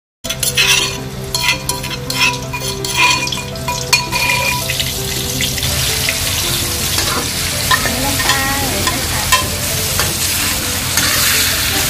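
Diced pork and garlic sizzling in hot oil in a wok as it is stirred, with sharp taps in the first few seconds. The sizzle thickens about halfway through.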